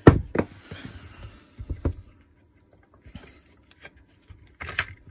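Handling clicks and knocks as a cordless rotary hammer is taken apart and its small parts are picked out. The loudest knock comes at the very start, two more about two seconds in, and a short cluster near the end.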